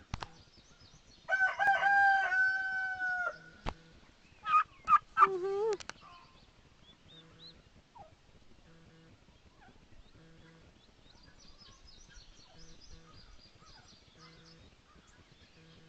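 A rooster crowing once, a long call of about two seconds that stays level in pitch and drops at the end. About a second later come a few short, sharper bird calls, then only faint high chirping.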